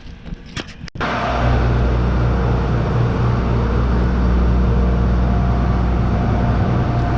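A large engine running steadily at a constant speed, coming in abruptly about a second in.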